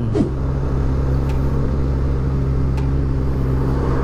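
Kawasaki ZX25R's inline-four engine running at steady revs while being ridden, through its Akrapovič exhaust, with road noise underneath.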